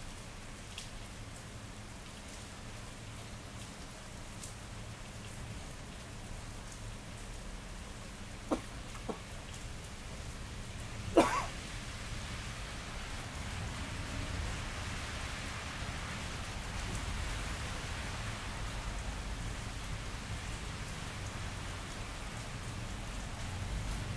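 Steady rain falling on wet pavement and surrounding surfaces, with a few close drips. A single sharp knock sounds about eleven seconds in, and the rain grows heavier soon after, over a low steady rumble.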